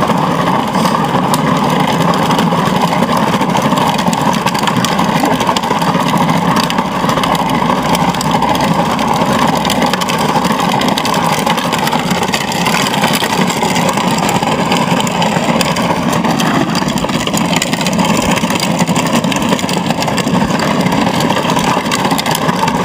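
Brushless electric motor and drivetrain of a ride-on toy truck converted to RC, running steadily with no change in speed.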